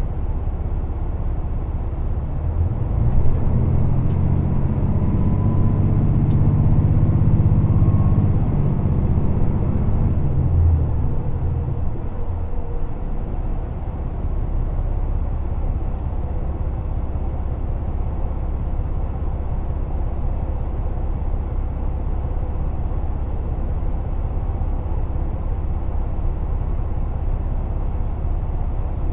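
Train running, heard from inside the passenger car: a steady low rumble with a louder, deeper hum swelling from about three seconds in and fading away by about eleven seconds.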